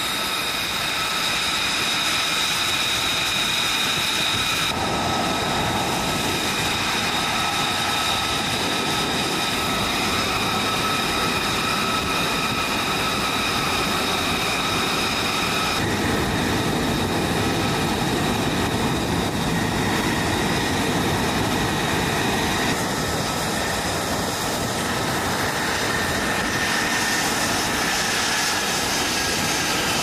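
F-35B Lightning II jet engines (Pratt & Whitney F135 turbofans) running on a ship's flight deck: a loud, steady whine of several high tones over a rushing roar. The mix changes abruptly a few times, and near the end one tone slowly falls in pitch.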